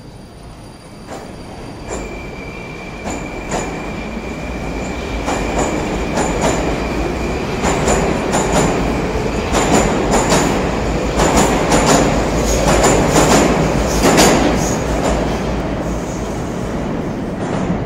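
A Moskva metro train pulling away from the platform. A steady high whine sounds as it starts moving, and the wheels clack over the rail joints faster and louder as it gathers speed. The sound eases a little near the end as the train heads into the tunnel.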